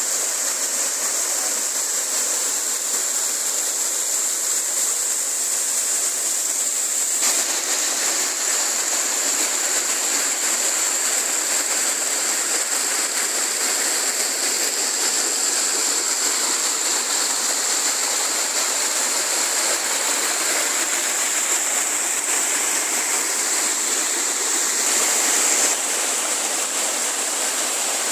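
Small mountain waterfall and stream cascading over rocks: a steady rush of water. Its tone changes abruptly about a quarter of the way in and again near the end.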